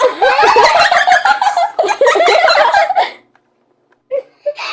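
High-pitched voices squealing and giggling together for about three seconds, their pitch wobbling up and down, followed by two short vocal sounds near the end.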